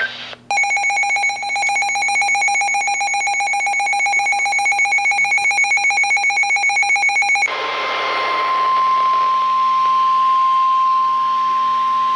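Emergency weather alert tones: a rapidly pulsing electronic alarm buzz for about seven seconds, then a steady single-pitch tone over radio hiss, the NOAA Weather Radio 1050 Hz warning alarm that comes before a severe thunderstorm warning is read.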